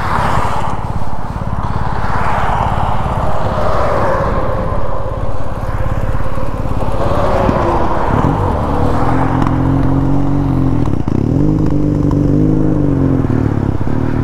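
Motorcycle engine running under way with wind rush; its pitch rises and falls with the throttle, most plainly in the second half.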